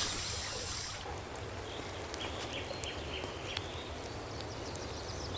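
Faint outdoor nature ambience: a steady low hiss and rumble with scattered faint ticks, and a few faint bird chirps near the end.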